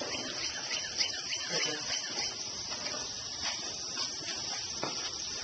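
Indistinct voices and a few sharp knocks from people handling and carrying a large LEGO model, over a steady high hiss.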